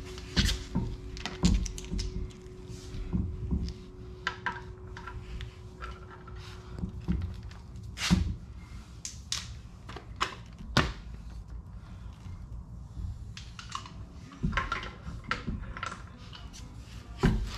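Irregular clicks and knocks of a car wheel being fitted back onto its hub and its lug bolts worked in by hand, with two louder knocks about halfway through.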